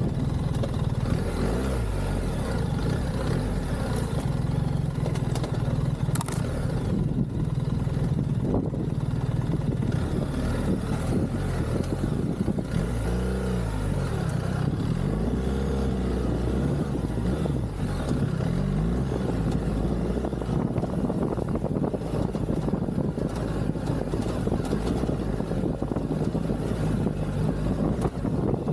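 BMW R1300GS boxer-twin engine running as the bike is ridden off-road, the pitch rising and falling with the throttle about halfway through.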